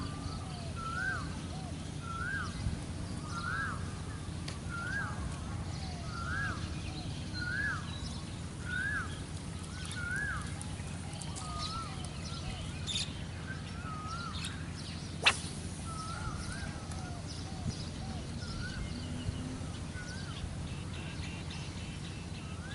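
A bird calling over and over, one short rising-then-falling note about once a second, growing fainter and sparser after about ten seconds. A steady low outdoor background runs underneath, and there is one sharp click about fifteen seconds in.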